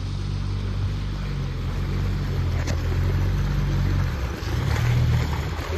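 A small boat's engine running steadily at low speed, a low even hum whose note dips and shifts briefly about four seconds in.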